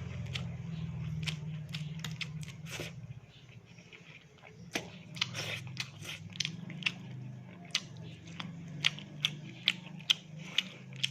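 Close-miked chewing and crunching of fried fish with rice, with sharp crisp crunches that grow more frequent in the second half, about two a second near the end. A steady low hum runs underneath.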